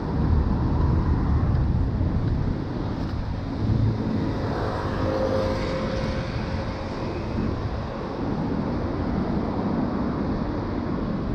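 Street traffic heard from a moving bicycle: a steady low rumble, with a passing motor vehicle's engine rising and fading from about four to seven seconds in.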